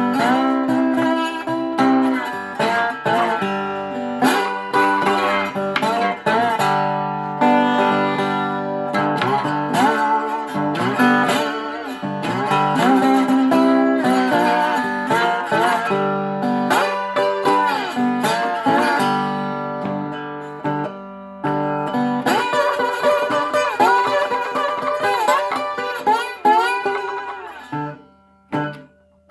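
1934 Regal Dobro resonator guitar played with a slide: plucked notes with sliding, wavering pitches. It breaks off briefly near the end.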